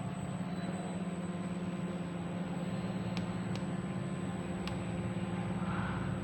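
A machine running with a steady low hum, with a few faint ticks about three seconds and again about four and a half seconds in.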